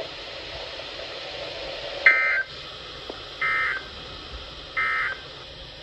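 Emergency Alert System end-of-message code: three short bursts of digital data tones, a little over a second apart, over a steady low hiss. The bursts mark the end of the severe thunderstorm warning message.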